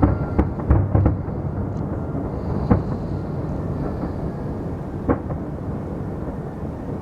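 Fireworks going off: a quick run of bangs in the first second or so, then single booms about three and five seconds in, over a steady low rumble.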